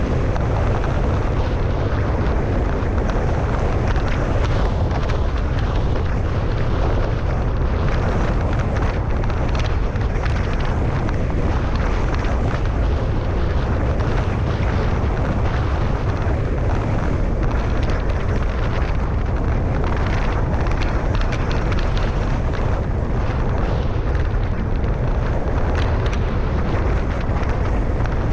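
Wind buffeting a GoPro's microphone while a bicycle rides at about 35 mph: a loud, steady, unbroken rumble with a rushing hiss above it.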